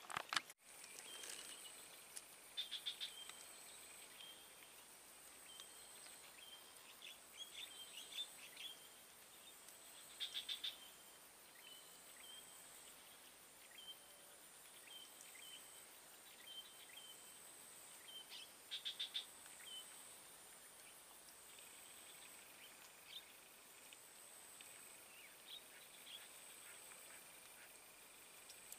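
Faint wild animal calls: short rapid trills recur every few seconds, with small chirps between them, over a steady high buzz. There is a single click just after the start.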